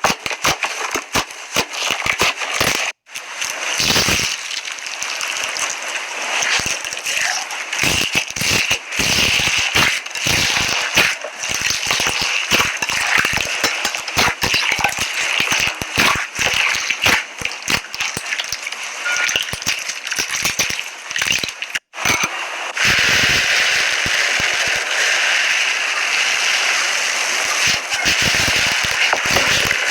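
Slime being squished and worked by hand, with a dense run of crackles and pops from trapped air. It breaks off briefly twice, and from about two-thirds of the way through it turns into a steadier, hissing crackle.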